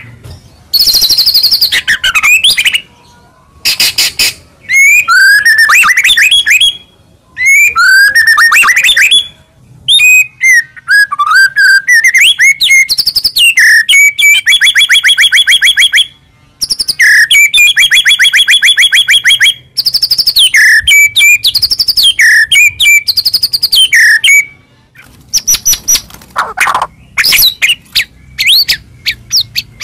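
White-rumped shama (murai batu) singing loud, varied song phrases with short pauses between them: clear whistles, quick sweeping notes and long rapid trills of repeated notes. The phrases are packed with 'isian', imitations of other birds' calls.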